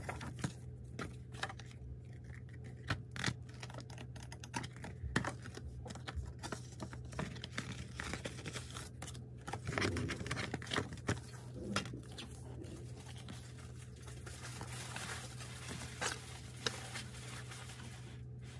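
Album packaging handled by hand: rustling and scraping of card and paper, with scattered small clicks and taps of plastic.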